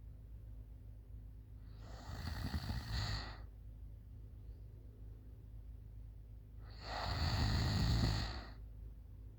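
A girl snoring in deep sleep: two long snores about five seconds apart, each lasting a second or more.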